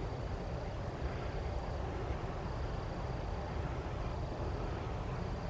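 Rural outdoor ambience: a steady low rumble with a faint, high insect trill that comes and goes.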